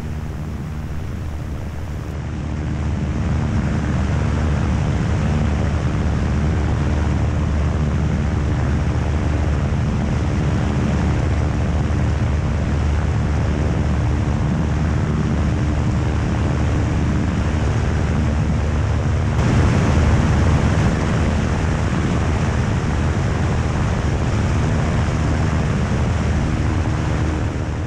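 Piper Super Cub floatplane's air-cooled flat-four engine and propeller droning steadily in cruise, with heavy wind rush buffeting the microphone. The sound grows a little louder about two seconds in.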